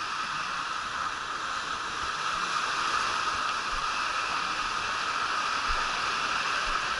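Steady rush of water pouring down a water slide and into its splash pool.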